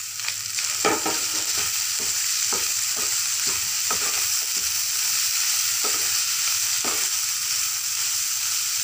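Minced meat (keema) sizzling in a non-stick frying pan as it is stirred with a spatula, a steady hiss broken by irregular scrapes and taps of the spatula on the pan about once a second.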